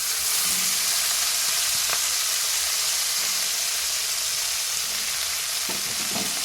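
Fresh-washed fenugreek leaves going into hot oil in a pan: a steady frying sizzle that swells suddenly at the start and slowly eases off.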